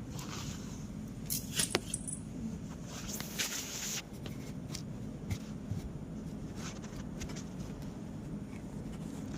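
Light metallic clinking and rattling of small metal parts and tools being handled, loudest in two short bursts about one and a half and three and a half seconds in, with scattered clicks over a steady low hum.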